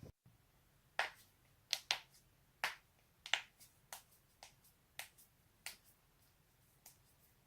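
Human joints cracking: a series of about a dozen sharp, irregular pops, the loudest in the first half.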